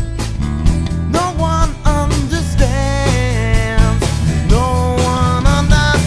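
Music: a demo recording of a song with a steady beat, heavy bass and a melody line whose notes slide up into long held tones.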